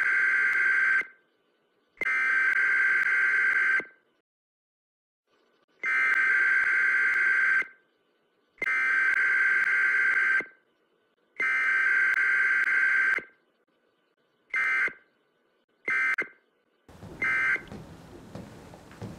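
Electronic alarm buzzer sounding in long, even beeps of about two seconds each with short gaps, then switching to three short beeps before it stops.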